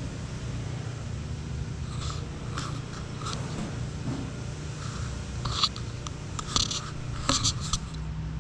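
Scattered metal clicks, knocks and scrapes of parts and tools being handled while an engine is fitted into a car, over a steady low hum.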